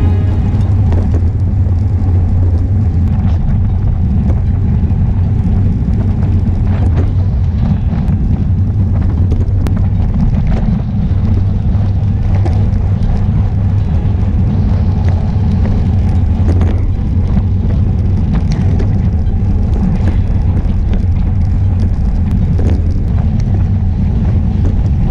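Wind buffeting the microphone of an action camera on a road bicycle at racing speed, mixed with road and tyre noise. It makes a loud, steady low rumble, broken by a few sharp ticks.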